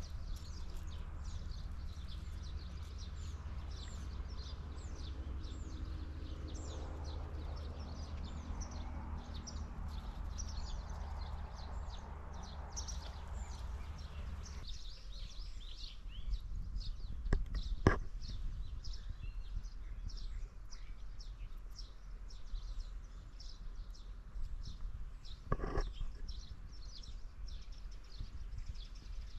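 Many small birds chirping in quick, short, high calls, over a steady low rumble. A sharp knock comes about 18 seconds in and another about 26 seconds in.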